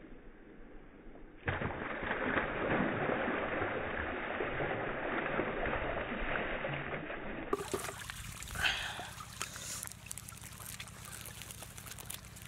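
Water poured in a stream, splashing over the skin of a whole pig carcass on the ground. It starts suddenly about a second and a half in, runs for about six seconds, then drops to a quieter trickle and splashing.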